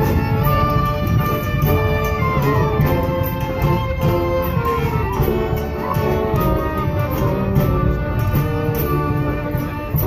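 Live acoustic band playing a lively tune together on clarinets, flute, accordions, violins, a hammered dulcimer, a tuba and a bass drum, with a steady beat.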